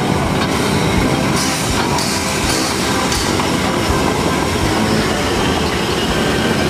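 Harz narrow-gauge 2-10-2 steam tank locomotive 99 7241-5 passing close by as it pulls its train out, its running gear and wheels working on the rails. A few loud hisses of steam come between about one and three seconds in.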